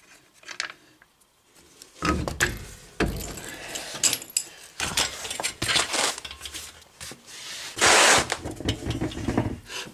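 Metal clinks, knocks and scrapes of hand tools and parts as a car's rear wheel is taken off, with one loud, brief rasping scrape about eight seconds in.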